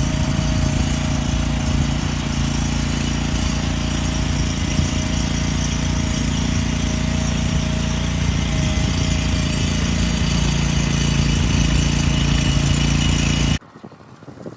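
Walk-behind Ditch Witch trencher's engine running steadily at an even speed, with a faint steady whine over it. It cuts off suddenly near the end.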